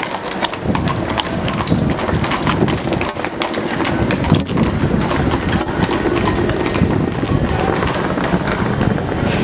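A horse's hooves clip-clopping on paving stones, amid the hubbub of a crowded pedestrian street.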